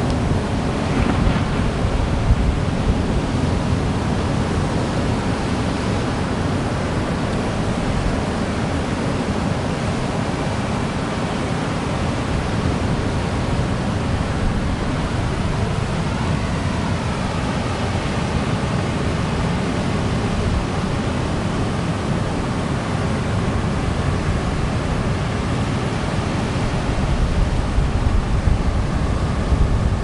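Ocean surf breaking and washing onto a beach: a steady rushing wash with a low rumble, swelling louder near the end as a bigger wave comes in.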